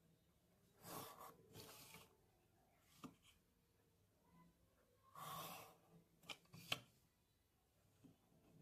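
Faint pencil strokes on paper, drawn along a plastic ruler: two or three short scratchy strokes, with a few light taps and clicks in between.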